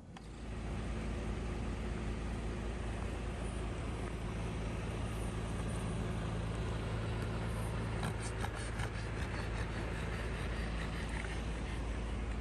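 Night-time outdoor ambience in a highway service-area car park: a steady low engine hum from idling vehicles under a heavy low rumble. A few faint clicks come around two-thirds of the way through.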